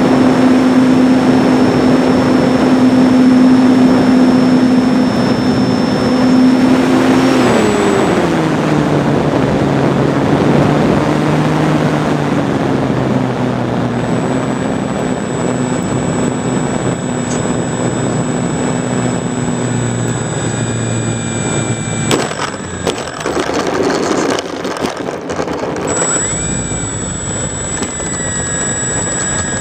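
ParkZone T-28 RC warbird's electric motor and propeller running at a steady pitch, with wind rushing over the wing-mounted camera. About a quarter of the way in the motor is throttled back and its pitch falls, then keeps dropping in steps; about three quarters in come a few sharp knocks and rattles, followed by a high whine that rises and then settles.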